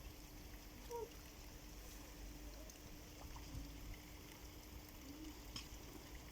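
Faint outdoor ambience of light rain and trickling rainwater, with a faint steady hum and a short faint squeak about a second in.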